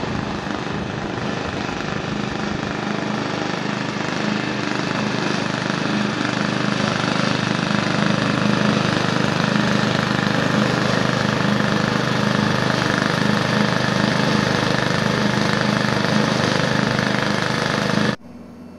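An engine running steadily, with a low hum under a broad rushing noise; it cuts off abruptly near the end.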